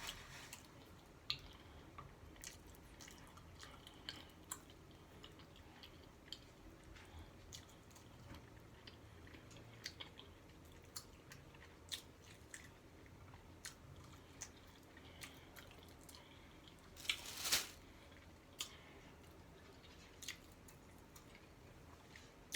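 A person chewing a taco: faint mouth sounds with scattered short clicks and smacks, and one louder, longer crunch or smack about three-quarters of the way through.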